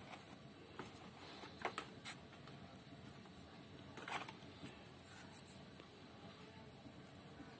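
Faint, light scratches and taps of fingers and a wooden skewer firming potting soil around a transplanted seedling in a thin plastic cup, a small cluster of clicks about two seconds in and another about four seconds in.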